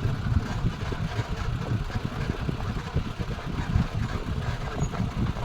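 Safari vehicle's engine running, a steady low rumble with a faint hiss of road or wind noise above it.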